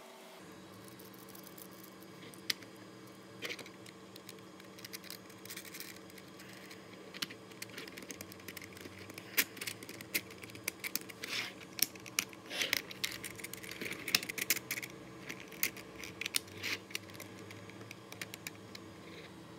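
Irregular clicks, taps and light scraping of 3D-printed plastic parts being handled and snapped together: the ribbed sliding load-bed cover being fitted onto a printed Cybertruck model. The clicks are sparse at first and come thick and fast through the middle and later part, over a faint steady hum.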